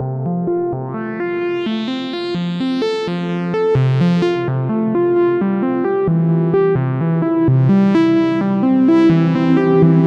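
Melbourne Instruments Nina synthesizer playing a fast repeating pattern of notes, about four a second, while keys are held. The tone brightens and darkens as the filter knobs are turned.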